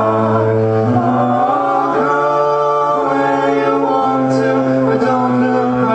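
Live pop band singing slow held notes in close vocal harmony over a steady low drone, the chord shifting every second or so.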